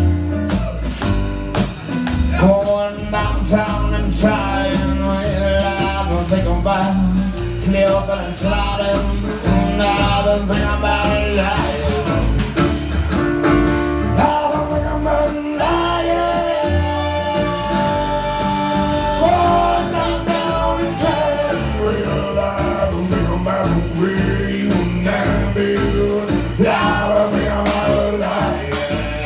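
A small live band playing a song: a drum kit keeping a steady beat under upright bass, guitar and trombone lines.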